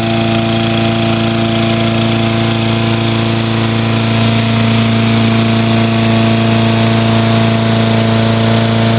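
Toro Recycler lawn mower's Tecumseh 6.5 hp GTS single-cylinder engine running steadily on its newly fitted aftermarket carburetor, the sign that the replacement has brought it back to running well.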